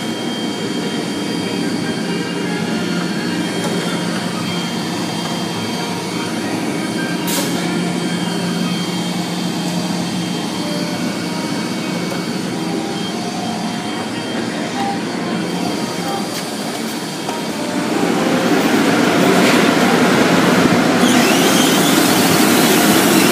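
Automatic tunnel car wash machinery running, a steady hum with several held tones. About 18 seconds in it becomes much louder with a broad rushing hiss.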